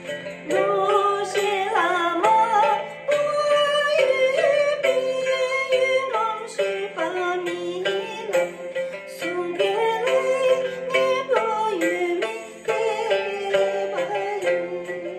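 A woman singing a Tibetan song into a microphone, her melody wavering and bending, over recorded instrumental backing music with a steady beat.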